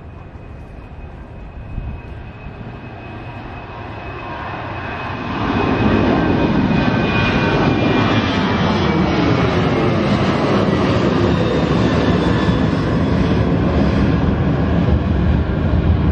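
Boeing 737's twin CFM56 turbofans at takeoff thrust as the jet lifts off and climbs out overhead: a roar with a high fan whine that builds, then grows sharply loud about five seconds in as the aircraft passes, its pitch sliding downward.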